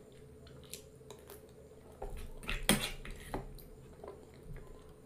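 Metal spoon clinking and scraping against a plate while scooping up food: a few light clicks, then a louder run of scrapes and clinks about two and a half seconds in.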